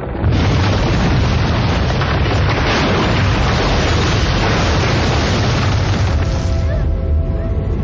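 A loud boom starts suddenly about a third of a second in and runs into several seconds of dense rumbling noise, like an explosion on a film soundtrack. It fades near the end, leaving a low rumble, with music faintly underneath.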